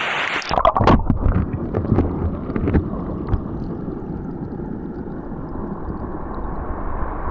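Running water of a brook heard by a camera microphone dipped underwater: a dull, muffled low rumble with irregular knocks and clicks, the crisp splashing cut off. The bright stream sound comes back as the camera lifts out near the end.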